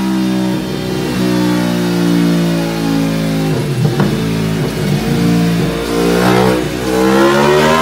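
Aprilia Tuono V4 1100's V4 engine running in gear on a motorcycle dyno. It holds a steady pitch, goes uneven for a couple of seconds in the middle, then its pitch starts climbing about six seconds in as the throttle is opened.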